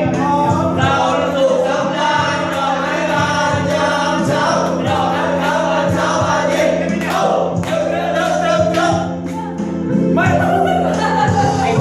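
A Thai pop song playing: sung vocals, several voices at once, over steady instrumental accompaniment.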